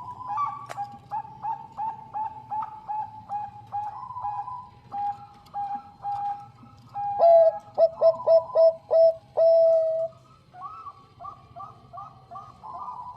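Bangkok perkutut (zebra dove) cooing: a long series of short, evenly repeated coos, which grow louder and quicker for a few seconds past the middle, then turn softer near the end.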